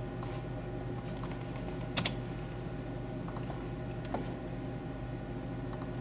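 Scattered clicks and taps at a computer's mouse and keyboard, the loudest about two seconds in, over a steady low hum.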